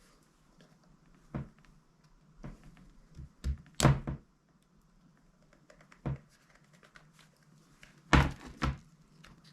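Plastic pry tool working under a tablet's back cover: scattered short knocks and snaps as the cover's clips are levered loose, the loudest about four seconds in and again about eight seconds in.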